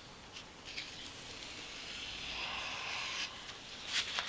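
Knife blade stroked across 600-grit wet/dry sandpaper while being sharpened, a soft scratchy hiss. It runs as one long stroke through the middle, with shorter scrapes near the start and near the end.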